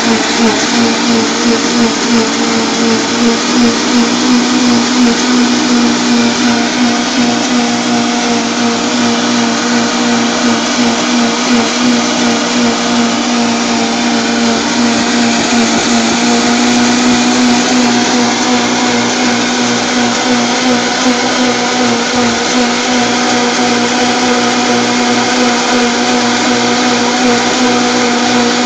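Vitamix blender running loudly, blending wheatgrass and water into a fine pulp: a steady motor hum with a rushing churn of liquid. The pitch wavers for the first few seconds, then holds steady.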